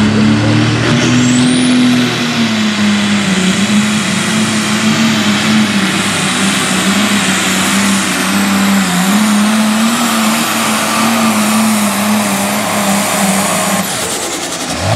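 Turbocharged diesel engine of a Case IH light pro stock pulling tractor running flat out under heavy load as it drags a weight-transfer sled, its note wavering a little through the pull. A high whine rises over the first two seconds, and the engine drops off near the end.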